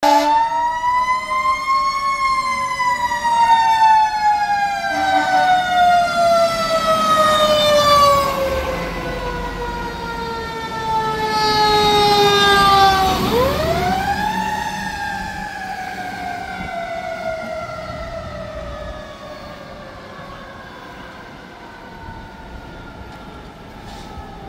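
Fire engine siren running: it winds up to a high wail, slowly winds down over about ten seconds, then winds up sharply again about halfway through and winds down once more. A deep engine rumble comes in as the truck passes near the middle, and the siren fades toward the end as the apparatus moves away.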